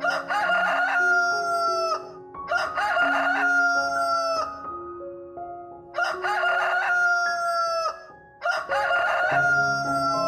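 A rooster crowing four times in quick succession, each crow about two seconds long with a broken start and a held, slightly falling note.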